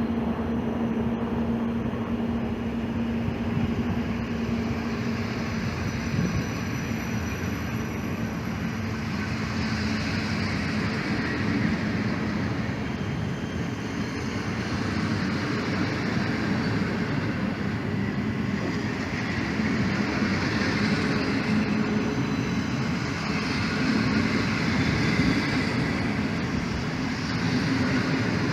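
Electric passenger train moving through the station: a steady rumble of wheels on rails, with a hum in the first few seconds.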